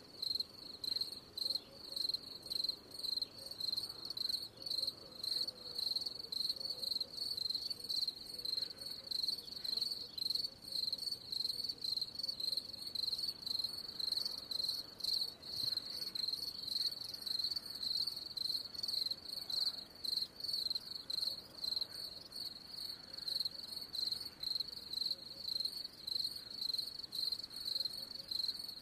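Cricket chirping: high-pitched chirps repeated in a steady, quick rhythm without a break.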